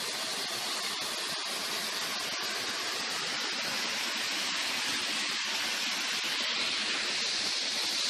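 Steady rushing of a waterfall's water cascading over rocks, an even hiss with no breaks.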